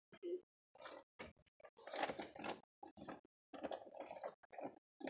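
Hands working a cord strung with beads close to the microphone: faint, uneven rustling and handling noise in short bursts.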